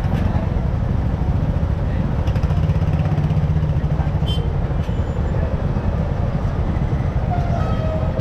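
Steady rumble of wind buffeting the microphone and engine noise on a moving Yamaha R15M motorcycle.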